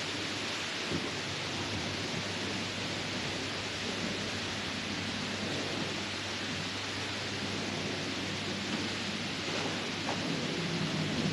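A steady, even rushing noise with no clear pitch, with a couple of faint knocks.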